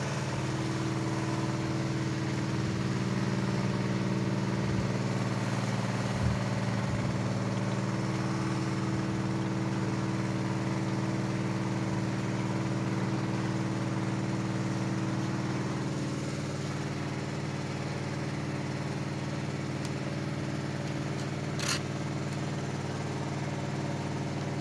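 Steady hum of a running motor or engine, with a slight change in its tone about two-thirds of the way through and a single short click near the end.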